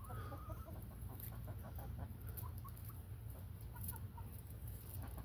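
Chickens clucking softly, a scatter of short, faint clucks and chirps.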